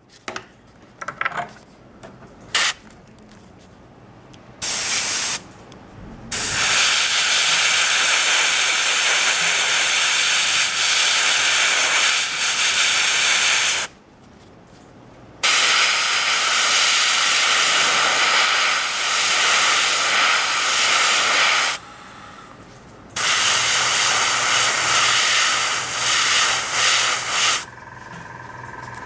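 Dual-action gravity-feed airbrush spraying paint with a steady hiss of air. After a few light handling clicks, it gives one short burst, then three long bursts of several seconds each, separated by brief pauses.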